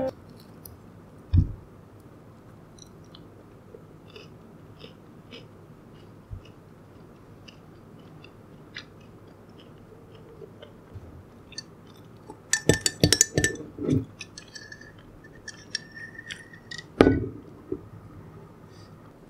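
Close-up eating sounds: flaky pastry being torn by hand and chewed, with scattered small crackles and a burst of crisp crunching about two-thirds of the way through. A dull knock near the end comes as the ceramic mug is handled on the wooden table.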